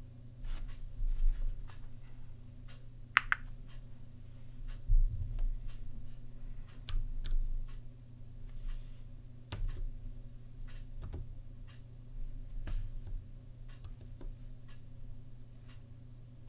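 Slow, uneven typing on the Zilpzalp ergonomic keyboard's Kailh Choc Twilight low-profile tactile switches: separate key clicks, a few a second, with short pauses, and one brief brighter rasp about three seconds in.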